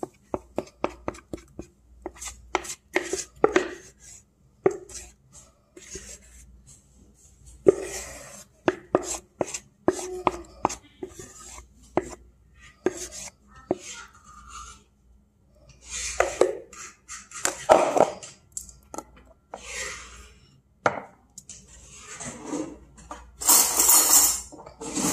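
A kitchen utensil knocking and scraping against a mixing bowl as pancake batter is worked out into a baking dish: a quick run of sharp taps at first, then scattered knocks. Louder clatter of dishes and utensils on the counter follows, the loudest near the end.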